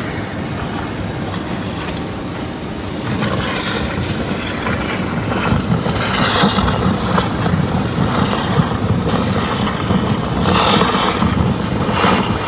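FPE industrial meat grinder running with a steady mechanical drone. It grows louder about halfway through, with a few brief harsher bursts near the middle and end.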